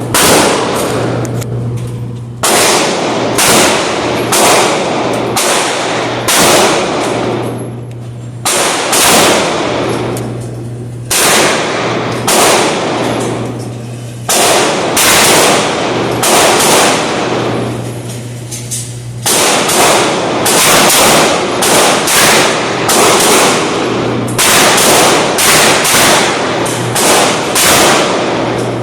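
Gunshots at a shooting range: a long string of sharp reports, roughly one or two a second, each ringing out briefly, with a few pauses of a second or two between strings.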